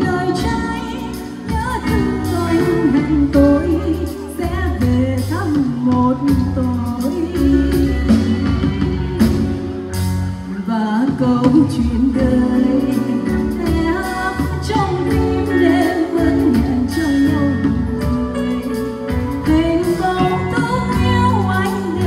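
A woman singing a slow, lyrical Vietnamese song with a live band backing her, over a steady beat.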